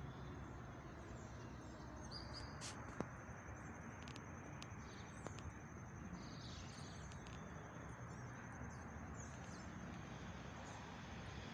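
Outdoor ambience: a steady high-pitched insect trill, a few short bird chirps and a low steady background rumble, with a couple of faint clicks about three seconds in.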